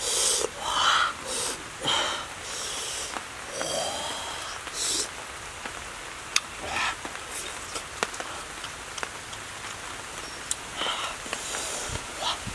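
Close-up eating sounds of a man eating turtle and fish meat with his fingers: wet smacking and chewing, with sharp breaths and sniffs every second or two and a few small clicks. A short rising hum about four seconds in.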